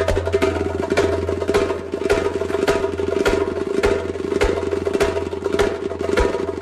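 Darbuka (goblet drum) played by hand in a fast run of sharp strokes, over steady held notes from other instruments and a low bass note.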